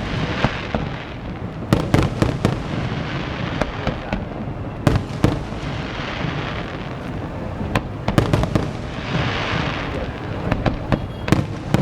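Aerial fireworks display: repeated sharp bangs of bursting shells in clusters, with crackling from glitter shells swelling about six seconds in and again between nine and ten seconds in.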